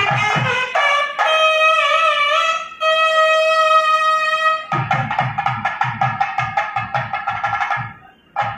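Live South Indian temple-style music: a nadaswaram plays a melody with a long double-reed tone, bending through a phrase and then holding one long note, while a thavil drum beats fast strokes that stop after the first second and come back in about five seconds in. The music drops out briefly near the end.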